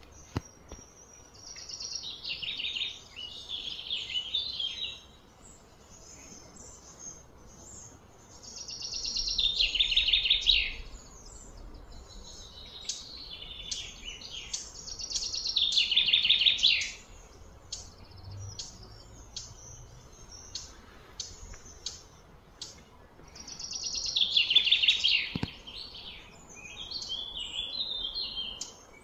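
Songbird singing: four loud, high trilled phrases of two to three seconds each, several seconds apart, with short chirps in between.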